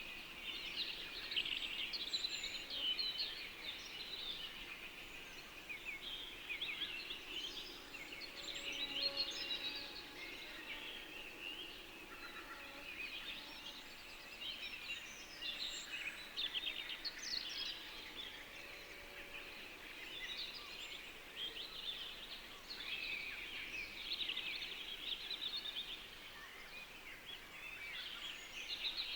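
A dense chorus of many small birds chirping and twittering at once, the calls overlapping without a break.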